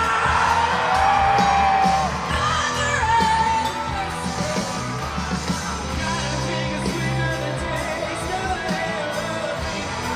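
Live rock band with electric guitar and drums playing loud and steady, a male lead singer belting into a microphone over it with long held notes.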